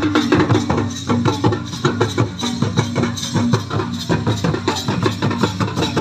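Folk drumming for a line dance: hand-played barrel drums beaten in a fast, dense rhythm, with a steady held tone underneath.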